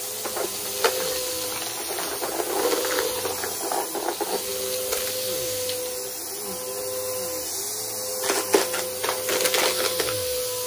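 Aeroswift vacuum cleaner running with a steady motor whine, crackling and ticking as crunchy debris is sucked up. Sharper clicks come about a second in and again near eight and a half seconds.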